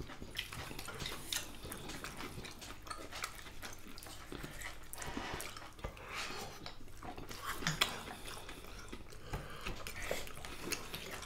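Quiet eating sounds: fingers mixing rice and dal on ceramic plates and soft chewing, with scattered small clicks.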